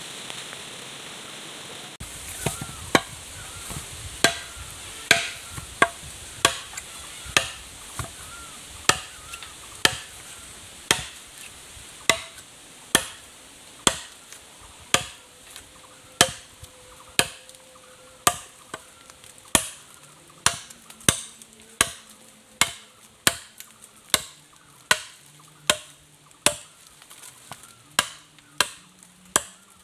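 A machete chopping into a thick green bamboo pole in steady, evenly spaced blows, about one and a half a second, starting about two seconds in.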